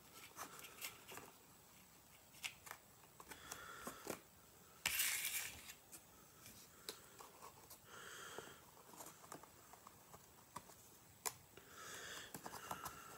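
Faint rustling and crinkling of packaging being handled, with scattered small clicks. The loudest rustle comes about five seconds in.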